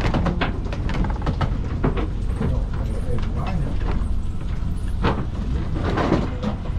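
A wooden boat's engine running with a steady low hum, with irregular knocks and rattles on top.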